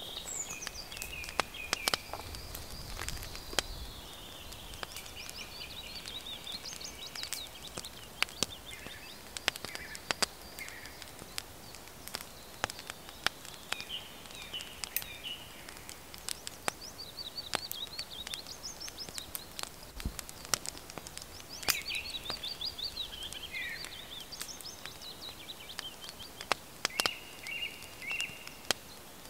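Songbirds singing in repeated trills and chirping phrases, over many sharp irregular clicks and snaps from a small wood fire crackling.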